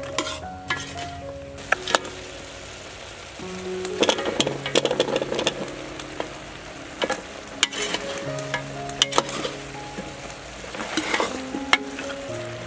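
Metal ladle stirring pork leg pieces and papaya chunks in a steel pot: the food sizzles and the ladle clinks sharply against the pot, busiest about four to five seconds in and again near the end. Soft background music with held notes plays underneath.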